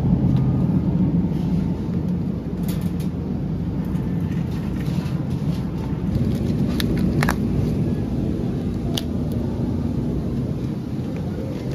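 Steady low hum and rumble of supermarket background, with a few short clicks from handling along the way.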